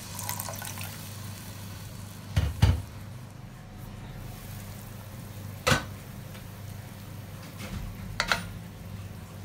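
Liquid pouring into a cooking pot and trailing off within the first second, then a glass pot lid with a metal rim clattering against the pot: a loud cluster of knocks about two and a half seconds in and a single sharp knock a few seconds later. Near the end a wooden spoon knocks twice against the pot, over a steady low hum.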